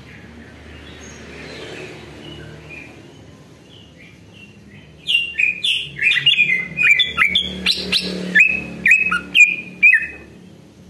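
Male cucak ijo (green leafbird) singing. After a few faint notes, about five seconds in it breaks into a loud, fast run of varied whistled notes that stops shortly before the end.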